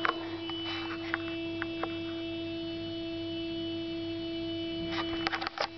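A steady humming tone with overtones that holds unchanged throughout, with a quick cluster of sharp clicks about five seconds in.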